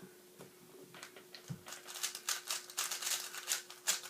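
Plastic 3x3 speedcube being turned by hand: a few separate clicks of its layers at first, then a fast flurry of clacking turns over the last two seconds. A faint steady hum sits underneath.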